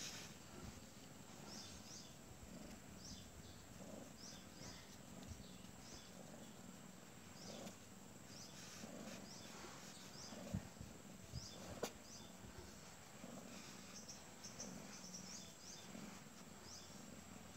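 Quiet ambience with faint, short high-pitched chirps coming and going throughout, and a few soft knocks and one sharp click a little past the middle.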